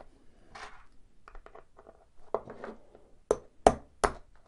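Small hammer striking a pin punch three times in quick succession near the end, driving the retaining pin out of a Vauxhall flip key's blade assembly resting on a cardboard box. Light handling and rustling come before the strikes.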